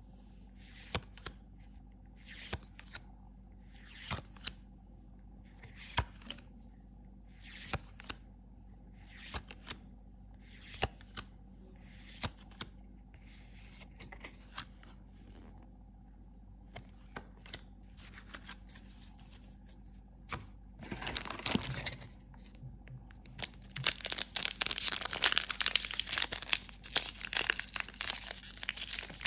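Trading cards flicked through one at a time in the hand, a sharp card snap every second or two. Near the end, loud crinkling and tearing of a foil booster-pack wrapper.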